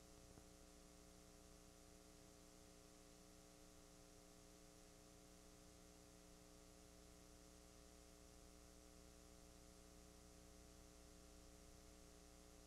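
Near silence: a faint, steady electrical hum with a layer of hiss, from a blank stretch of videotape being played back.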